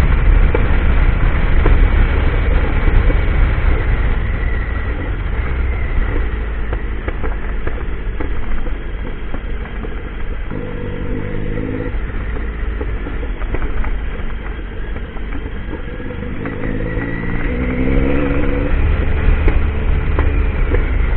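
Triumph Tiger motorcycle engine running under way, with heavy low rumble on the microphone; the engine note climbs twice, about ten seconds in and again about seventeen seconds in, as it is revved up.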